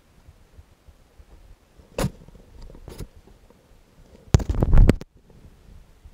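Handling noise from putting on and lacing sneakers: a sharp knock about two seconds in and a faint click a second later. Near the end comes half a second of loud rubbing and knocking, clothing and hands brushing against the body-worn camera.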